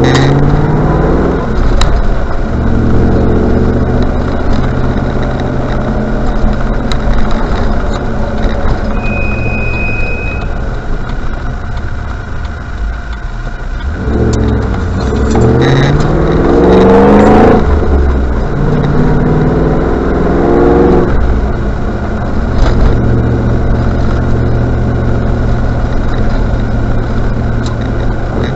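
Range Rover Classic on the move, its engine rising in pitch again and again as it pulls up through the gears over steady road noise. Around nine seconds in there is a short, high-pitched squeal lasting about a second and a half, the brake squeal this car has.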